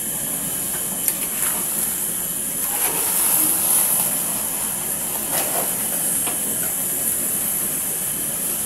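A metal spoon stirring and lifting Indomie noodles in an aluminium pot, with a few light scrapes against the pot, over a steady hiss from the cooking.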